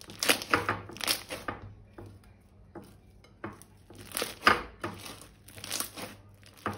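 Slime being worked by hand, giving bursts of sticky crackles and pops in several irregular clusters.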